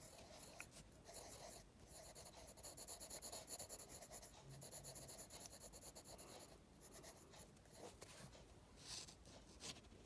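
Faint scratching of a pencil drawing on paper in quick, repeated strokes, busiest through the middle.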